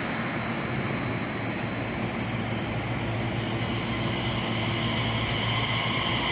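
Electric commuter train at the platform: a steady hum and rumble that slowly grows louder.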